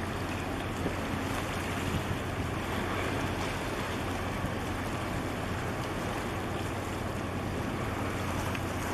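Steady low rumble from a passing container ship and its tug close by, over an even wash of wind and water noise.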